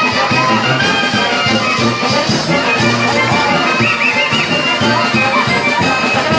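Wind band of brass and woodwinds playing a lively Mexican folk dance tune with a steady beat.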